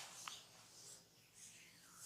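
Faint rubbing and scratching of hands on hair and skin during a head massage, with a light click about a quarter second in.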